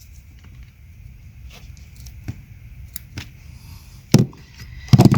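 Hands working spliced wire connections and a roll of electrical tape: scattered small clicks and crackles, with two sharper clicks about four and five seconds in.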